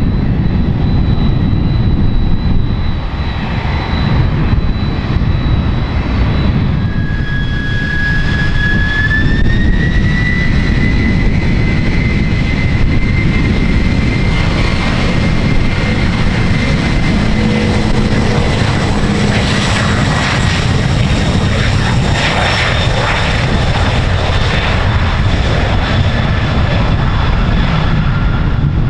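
Jet airliner's engines running loud: a deep steady rumble with a thin high whine that rises in pitch about eight seconds in and then holds, the noise growing brighter toward the middle.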